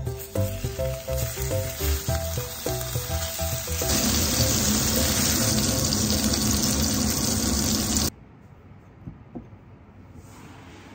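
Pork belly sizzling in a frying pan over background music; the sizzle grows louder about four seconds in and cuts off suddenly about eight seconds in.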